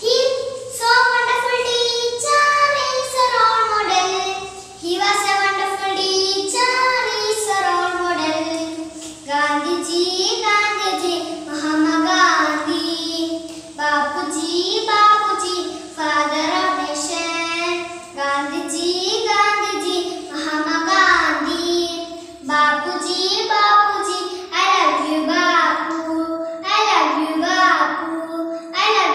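A young girl singing a song alone, in phrases of a few seconds with short breaks for breath between them.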